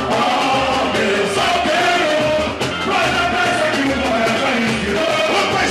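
Samba-enredo sung live by a group of male singers on microphones over a samba band, with a steady low drum beat under the melody.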